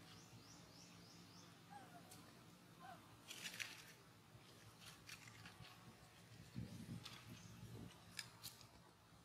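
Near silence with faint outdoor ambience. A bird gives a quick run of about six high chirps in the first second or so, and a brief scratchy rustle comes about three and a half seconds in, with a few faint clicks later.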